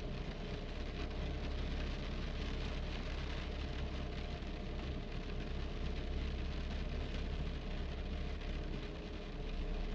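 Steady rushing noise with a low rumble underneath, unchanging throughout.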